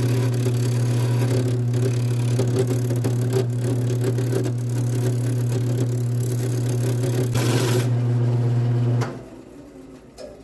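Wood lathe running with a steady motor hum while a turning tool cuts a poplar bowl blank, giving a rough scraping hiss that swells now and then. The lathe is switched off about nine seconds in and the sound drops away sharply.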